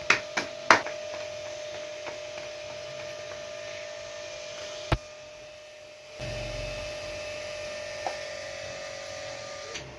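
Steady electrical hum on one pitch, with a few light knocks and a sharp click about five seconds in; a low rumble joins about six seconds in, and the hum cuts off just before the end.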